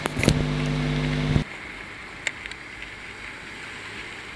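A steady held tone with several overtones for about a second near the start, then a steady background rush with a few faint clicks.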